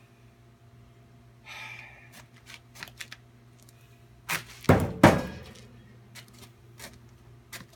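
Tools being handled at a manual tire changer: a short rustle and a few light clicks, then two loud knocks about half a second apart, with a brief ring after each.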